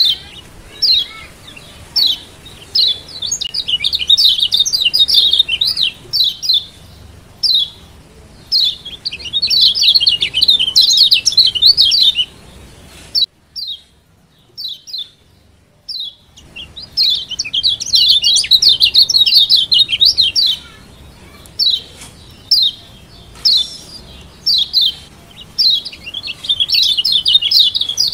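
Kecial kuning, the yellow Lombok white-eye (Zosterops), giving rapid high 'ciak' chirps. Single sharp notes alternate with dense chattering runs of a few seconds, with a brief near-quiet pause about halfway through.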